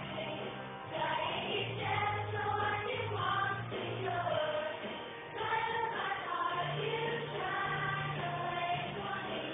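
Children's choir singing a hymn-like song with organ accompaniment, the organ holding low bass notes under the voices.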